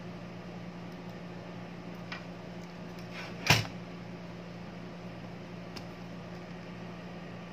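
Handling of a DVR circuit board in its sheet-metal case: a faint tick, then one sharp knock about three and a half seconds in, and another light tick, over a steady low hum.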